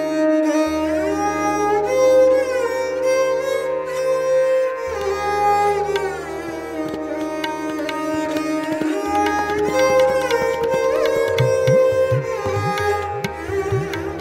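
Harmonium playing a melody over held low notes, with tabla accompaniment. Near the end the tabla's bass drum gives quick pitch-bending strokes.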